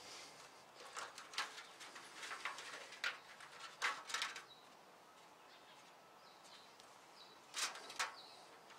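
Aluminium foil oven liner crinkling in short, scattered rustles as its edge is folded over an 18-gauge wire, faint throughout, with a quieter stretch in the middle.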